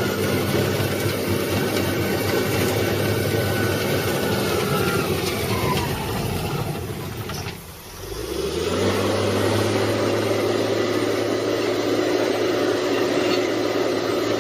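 A machine engine running steadily. About eight seconds in it drops away briefly, then comes back as a lower, even engine sound.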